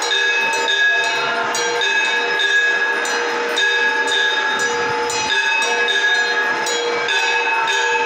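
Temple bells ringing continuously during aarti, struck about twice a second so that their ringing tones overlap and never die away.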